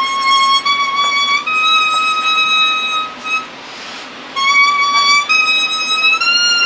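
Kusabue, a grass-leaf whistle played by blowing across a leaf held to the lips, sounding a slow melody of long held high notes that step upward in pitch, with a short break for breath about halfway through.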